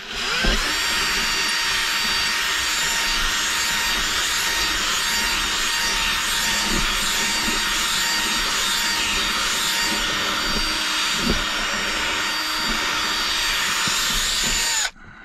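Cordless drill running steadily under load, boring into an armrest's base plate, with a constant motor whine over the cutting noise. It starts about half a second in and stops suddenly near the end.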